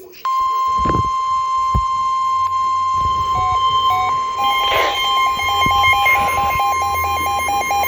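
NOAA Weather Radio 1050 Hz warning alarm tone: one loud, steady tone, the signal that a warning broadcast (here a flash flood warning) is about to follow. About four seconds in, a weather radio receiver's own alert joins it, beeping rapidly at about four beeps a second.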